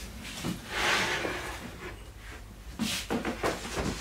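Steinway model B grand piano keyframe with its keys being slid off a wooden workbench and moved. A rubbing slide comes about a second in, then several light wooden knocks near the end as it is handled and set down.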